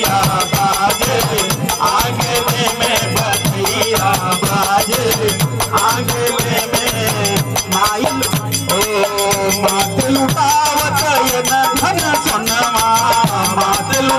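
Live Hindi devotional folk song (badhai geet): a harmonium carries the melody over a steady beat of hand drumming and jingling rattle percussion, with voices singing.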